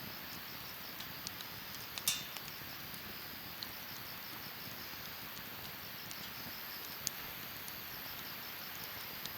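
Wood fire burning in a Snow Peak steel fire pit: a steady soft hiss with scattered sharp crackles and pops, the loudest about two seconds in and another near seven seconds.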